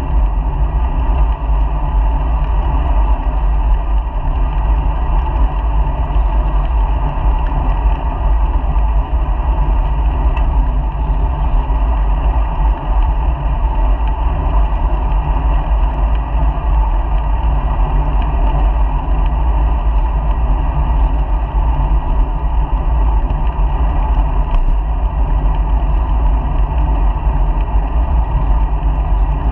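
Steady, dull rumble of wind buffeting a bicycle-mounted GoPro camera while riding, with road noise from the bike underneath.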